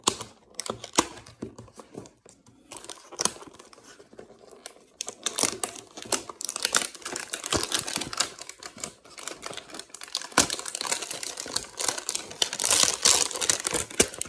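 A cardboard hanger box of trading cards being torn open and its contents pulled out: scattered clicks and taps at first, then dense crinkling and tearing of cardboard and wrapping from about five seconds in.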